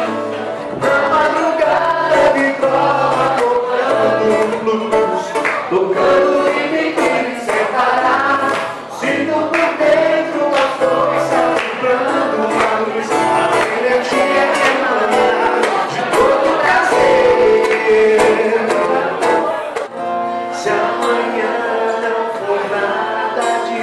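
Live acoustic music: an acoustic guitar strummed while a man sings into a microphone.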